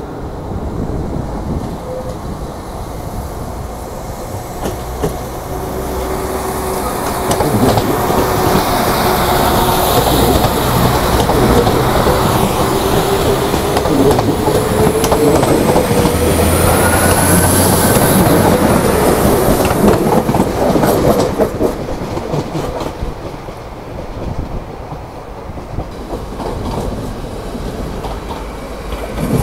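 A train going by on the tracks, its wheels clicking over the rail joints. It grows louder for the first several seconds, stays loud through the middle with a high whine that rises and then falls, and eases off towards the end.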